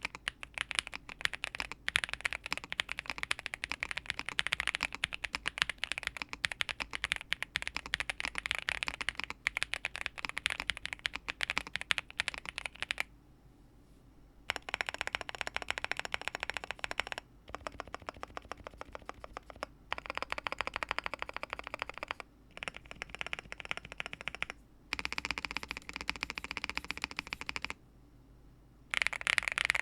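Typing on a NuPhy Gem80 mechanical keyboard with NuPhy Lemon switches, a fast continuous run of key clacks. About 13 seconds in it stops briefly, then comes in several bursts of two to three seconds each with short pauses between.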